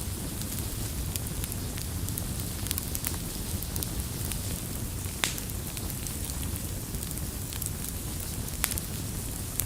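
Campfire of burning wood crackling, with a steady low rumble under frequent small crackles and two sharper pops, about five seconds in and again near the end.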